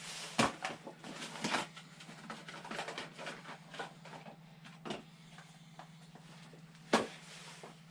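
Workshop handling noise: a scatter of clicks and knocks from tools and parts being picked up and set down, with one sharp knock about seven seconds in, over a steady low hum.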